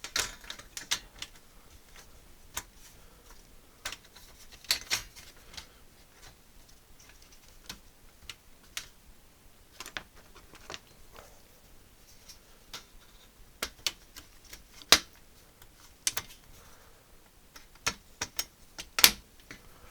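Irregular sharp plastic clicks and taps as the Atari 65XE's case sections and keyboard are handled and fitted together, a few louder knocks among them.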